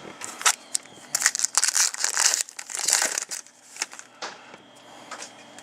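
Crinkling and rustling of a trading-card pack wrapper being handled and crumpled, in a run of crackly bursts lasting about three and a half seconds that fades to light handling noise near the end.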